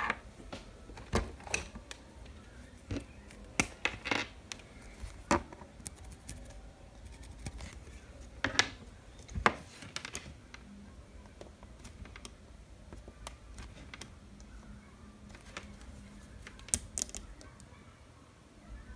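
Multimeter probe tips tapping and clicking against the SMD LEDs of an LED light board, with handling of the board: irregular, sharp little clicks, a few louder ones about eight and nine seconds in. The LEDs are being checked one by one in diode-test mode to find the failed ones.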